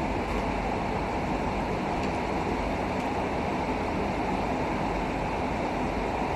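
Steady, even rushing noise that does not change, with a couple of faint light clicks.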